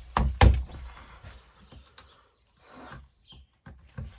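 Handling knocks as the side cover of a Makita 9911 belt sander is set back in place: two loud clunks in the first half second, then a few lighter clicks and taps.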